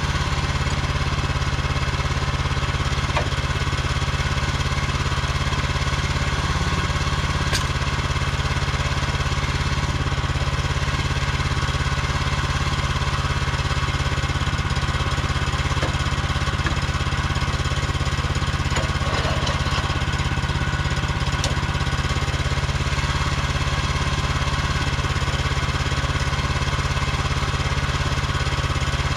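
Woodland Mills HM130MAX portable band sawmill's gas engine running steadily at an even speed.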